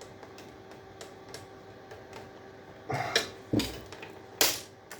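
Hand tools working on a scrap electrical fitting: faint ticks from a screwdriver, then a few loud knocks and scrapes about three, three and a half and four and a half seconds in, as it prises out small brass parts.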